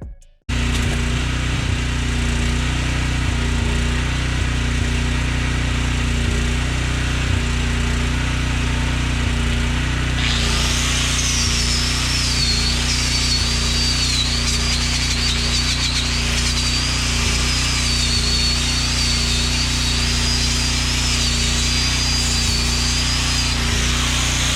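A power tool running steadily with a low hum, joined about ten seconds in by a high whine that wavers in pitch.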